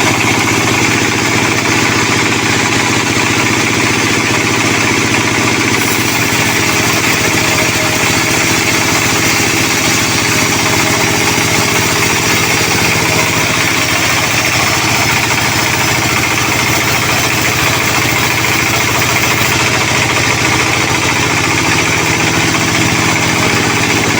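Sawmill machinery running steadily while sonokeling (Indonesian rosewood) logs are being sawn: a constant engine-like drone with a hiss over it. The top end brightens about six seconds in and settles again near twenty seconds.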